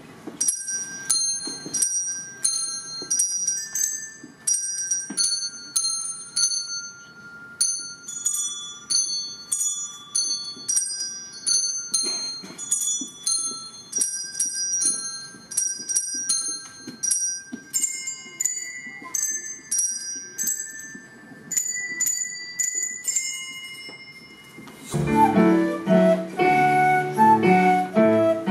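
Instrumental music of quick, repeating bell-like chiming notes over a slower melody. About 25 seconds in it gives way to a flute playing with an electric keyboard accompaniment.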